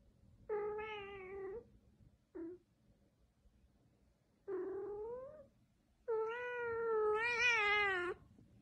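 Cat meowing: three drawn-out meows and a short chirp-like one. The second meow rises in pitch at its end, and the last is the longest and loudest, with a wavering pitch.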